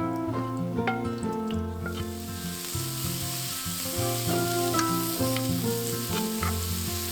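Food sizzling as it fries in a pan, starting about two seconds in, under background music.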